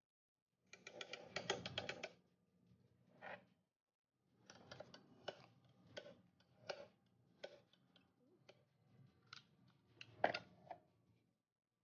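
Faint metallic clicks, taps and clinks of hand tools and parts being handled on a heavy-truck differential's power divider, with a quick run of rapid clicks about a second in and a sharper knock just after ten seconds.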